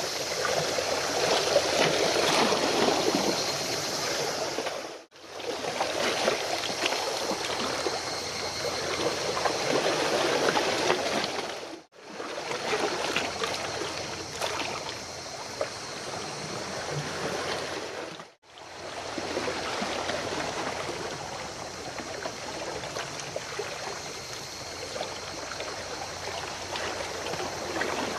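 Steady rushing and splashing of water. It cuts out for a moment three times, about 5, 12 and 18 seconds in.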